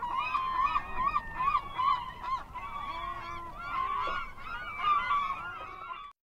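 A flock of birds calling: many short, rising-and-falling calls overlapping densely, which cut off abruptly near the end.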